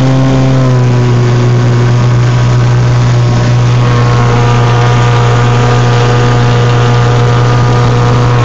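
Small outboard motor running steadily, pushing a small aluminium boat along, loud and close, with a brief waver in pitch about the first second.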